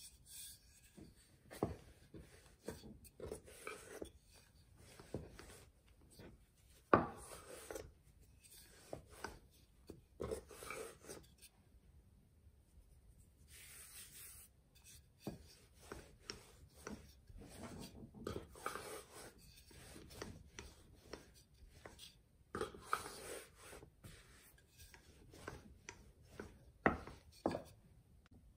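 Hands pressing and flouring a ball of dough, then a wooden rolling pin rolling it out on a bamboo cutting board: irregular rubbing strokes and light wooden knocks.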